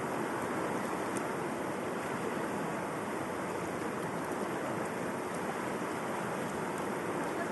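River water flowing and rushing in a steady, even wash.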